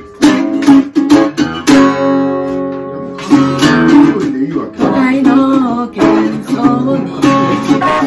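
A small acoustic guitar strummed in a steady rhythm, played together with an electric guitar in a live song.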